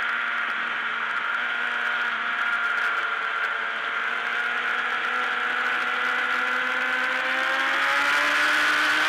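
Race motorcycle engine heard from an onboard camera, running at high revs through a long corner with wind rush over it; the pitch sags slightly mid-corner, then rises steadily over the last few seconds as the bike accelerates out.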